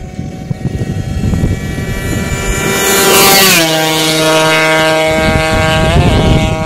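A stock Kawasaki KR two-stroke motorcycle on its stock pipe, run flat out past the roadside. Its high-pitched engine note grows louder, drops in pitch a little past halfway, and drops again about six seconds in as it goes by.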